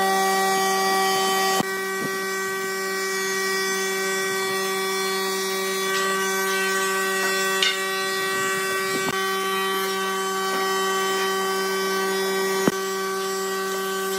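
Steady machine hum in a workshop: several pitched tones held unchanging, with a few light taps about a second and a half in, midway and near the end.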